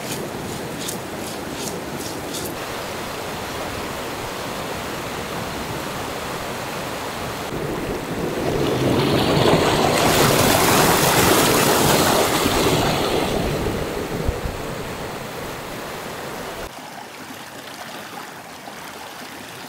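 River water rushing over rocky rapids, a steady rush that swells louder for several seconds in the middle and then drops away suddenly near the end.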